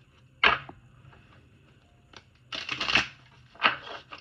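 A new oracle card deck being riffle-shuffled by hand on a table, in three bursts of rapid card flutter: a sharp one about half a second in, a longer one about two and a half seconds in, and a shorter one near the end.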